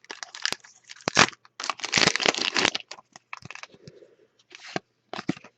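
A trading card pack's wrapper being torn open and crinkled in the hands, a run of short rustling and crackling bursts.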